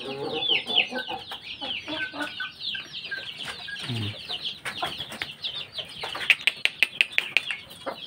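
Caged chickens clucking under a constant stream of short, high, falling chirps. Near the end a quick run of about seven sharp taps.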